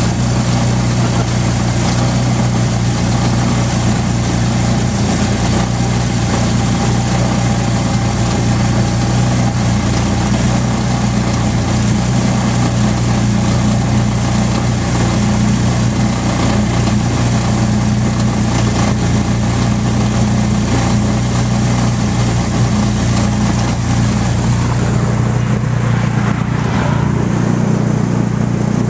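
A vehicle's engine running at a steady pitch while riding along the road, under steady road and wind noise. The high hiss thins out near the end.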